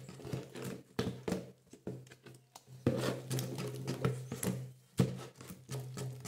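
Wooden spoon stirring a thick soap paste in a plastic bucket: irregular scraping, knocks and clicks of the spoon against the plastic sides, busiest about three seconds in and again near five seconds.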